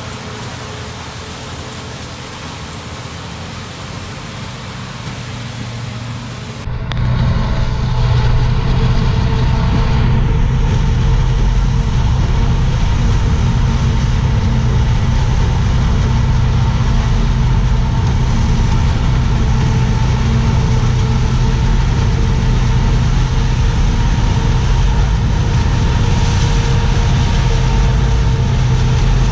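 Farm harvest machinery engine running steadily, with a cut about a third of the way in to a louder, deeper, constant engine drone.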